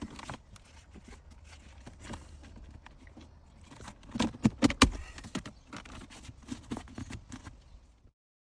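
Plastic shifter trim around a VW's gear selector being handled and pressed into the console: scattered clicks and light knocks, with a louder cluster of snaps about four to five seconds in.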